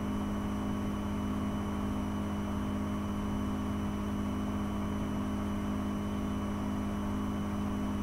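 Steady background hum and whir with several fixed tones, unchanging and even in level.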